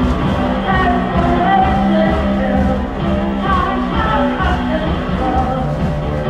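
Live band playing rock music, with singing.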